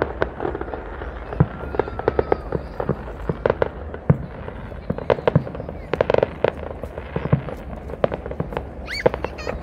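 Fireworks bursting in rapid, irregular pops and cracks, several a second, with a few louder bangs among them.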